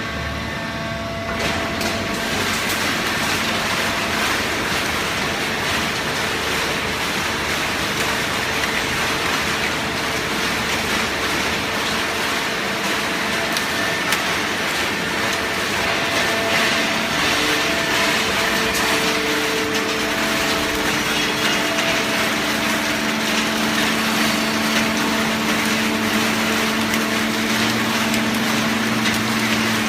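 Horizontal hydraulic waste-paper baling press running: a steady machine noise with a hydraulic pump hum that grows stronger in the last third, as it compacts cardboard and kraft paper.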